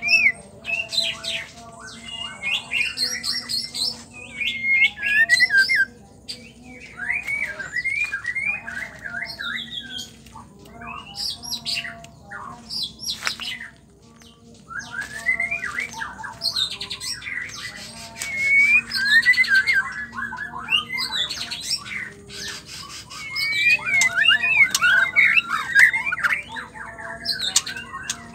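White-rumped shama calling in bursts of quick chirps, rattles and harsh squawks, with a short lull about halfway through.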